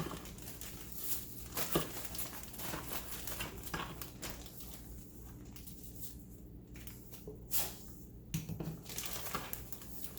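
Rustling and crinkling of a plastic bag with scattered light taps and scrapes of a scoop, as dry seasoning mix is scooped out and poured into a container.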